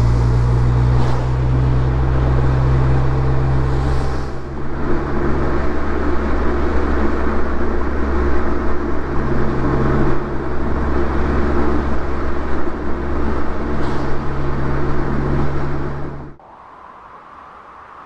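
BMW Z4 roadster's engine running while driving, at fairly steady revs over road and wind noise. The engine note falls right at the start, and the sound cuts off abruptly near the end.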